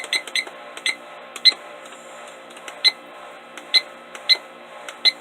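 Dream Sky digital alarm clock beeping as its setting buttons are pressed to set the time and date: three quick short beeps at the start, then single beeps at uneven intervals of about half a second to a second and a half, the sharpest about one and a half seconds in.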